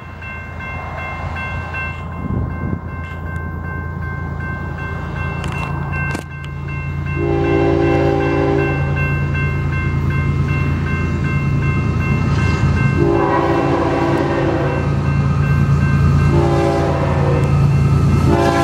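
Florida East Coast Railway diesel locomotive approaching a grade crossing, its engine drone growing louder. It sounds its air horn in the grade-crossing pattern: two long blasts, a short one and a final long one. The crossing bell rings steadily underneath.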